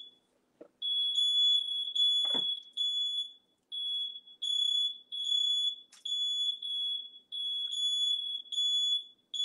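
Household smoke alarm sounding, set off during cooking: a shrill high-pitched beep repeated about every half to three-quarters of a second with short gaps. There is one brief knock about two seconds in.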